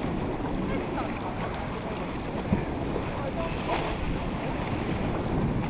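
Wind buffeting the microphone over water splashing and rushing along the hull of a sailboat under way.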